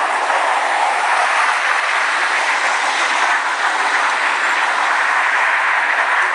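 A huge flock of crows cawing all at once, a steady dense din in which the single calls blur together.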